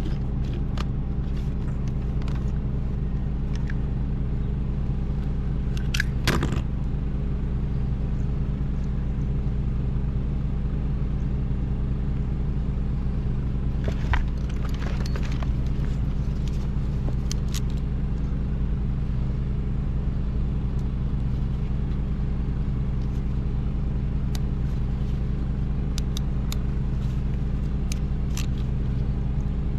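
A steady low engine-like drone, unchanging, with scattered light clicks and rattles of wire connectors being handled and plugged in: about six seconds in, around fifteen seconds in, and several near the end.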